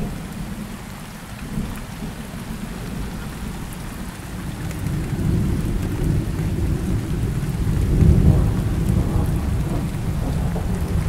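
A steady downpour of rain with rolling thunder. The low rumble of the thunder builds about halfway through and is loudest around three quarters of the way in.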